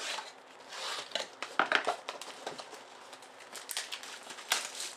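Plastic wrap crinkling and cardboard rustling as a Topps Triple Threads baseball card box is opened and handled. Sharp clicks and snaps run through it, the loudest about a second and a half in and again near the end.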